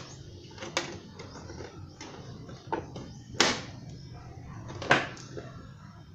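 Plastic front fairing panel of a Kymco Super Z 125 scooter clicking and knocking as hands press it onto its mounting clips: four sharp clicks, the loudest two about three and a half and five seconds in.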